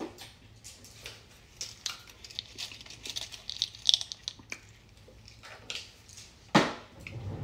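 Scattered light clicks, taps and rustling from a person handling things off to the side, with one sharper knock near the end.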